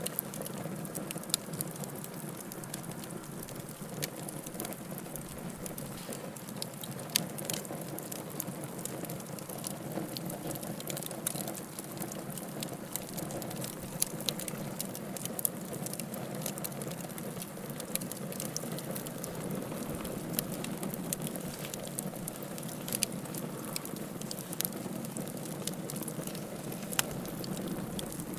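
Wood bonfire burning: a steady low rush of flame with frequent sharp crackles and pops of burning wood, a few of them noticeably louder snaps spread through.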